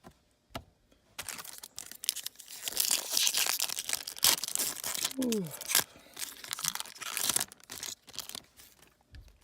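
Trading-card pack wrapper being torn open and crinkled by hand: a run of tearing and crackling that starts about a second in and dies away near the end.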